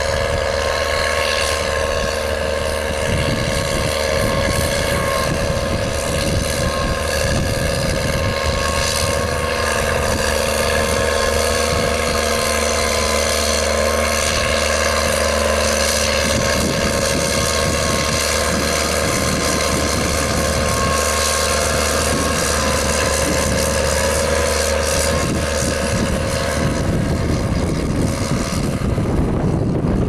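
Case IH Puma 180 CVT tractor's six-cylinder diesel engine running steadily under load as it pulls a five-furrow reversible mouldboard plough through the soil. Its tone shifts and turns rougher in the last few seconds.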